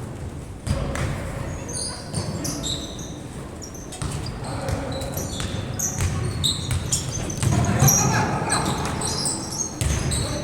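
Basketball game in a gym: a ball bouncing on a hard court with repeated thuds, short high sneaker squeaks, and voices echoing in a large hall.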